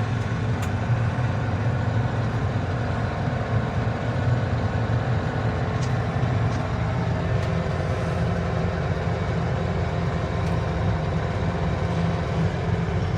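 Engine of the machine carrying the lifting jib running steadily at idle, with a few faint clicks over it.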